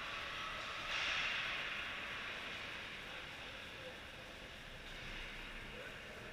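Ice rink ambience: a steady hiss, with a louder scraping hiss that starts suddenly about a second in and fades over the next couple of seconds.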